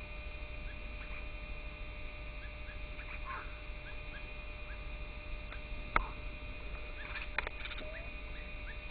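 Small birds calling: short, high chirps repeated every half second or so over a steady high hum, with one sharp click about six seconds in.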